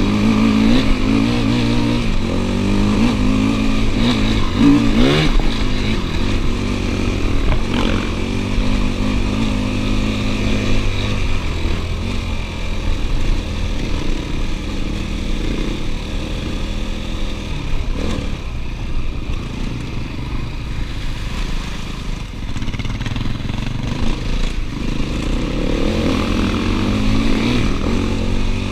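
KTM 250 EXC-F enduro motorcycle's single-cylinder four-stroke engine running under the rider's changing throttle, its pitch rising and falling over the first several seconds, then running more steadily.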